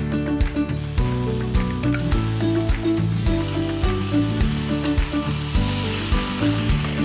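Eggs and sliced sausage rings sizzling in a hot frying pan, the sizzle growing louder in the second half as water is poured in to steam-fry them. Background music with a steady beat plays throughout.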